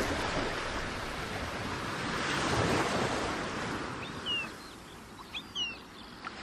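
Sea waves washing in, swelling twice, with a few short, high, falling bird cries about four to six seconds in.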